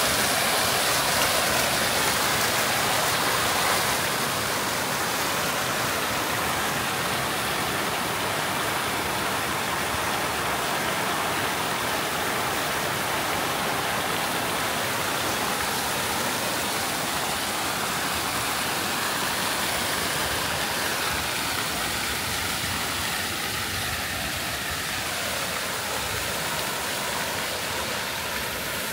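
Fountain jet splashing down into its pool: a steady rush of falling water, a little quieter after about four seconds.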